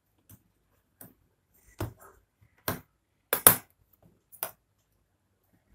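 A handful of separate knocks and clunks, the loudest about three and a half seconds in: a soldering iron being set down into its stand and handled on a cutting mat.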